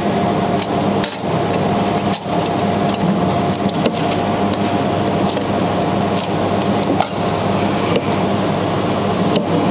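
Steady, loud machine hum with a few fixed pitches, with several light clicks and knocks as the wire feeder's drive roller and spool are handled and fitted.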